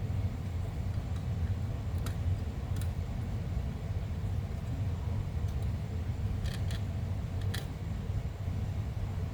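A few light clicks and taps of small parts of a car cooling-fan motor being handled and fitted back together, over a steady low hum.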